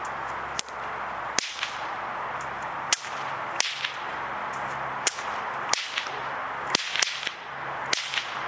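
Bullwhip cracking over and over in a continuous routine: a string of sharp cracks at uneven spacing, roughly one a second, some coming in quick pairs.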